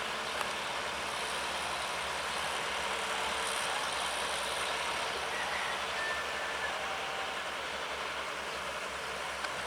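Sumitomo SH210 excavator's diesel engine running steadily.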